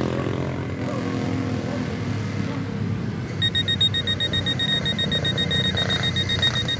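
Rapid, high electronic beeping, about five short beeps a second, starting about halfway through over a steady low engine rumble.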